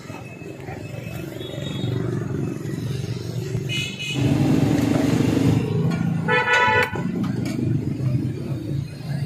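Street traffic noise, with a vehicle horn sounding twice in short blasts, a faint one about four seconds in and a louder one around six and a half seconds.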